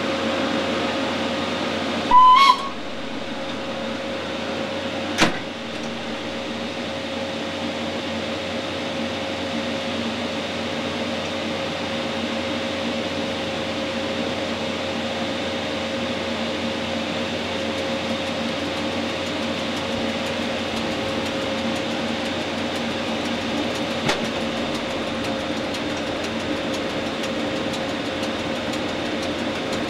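Rhaetian Railway Ge 6/6 I 'Krokodil' electric locomotive standing with its electrical equipment and cooling blowers humming steadily. About two seconds in, a short high whistle sounds, the loudest thing here, and a few seconds later a single sharp click.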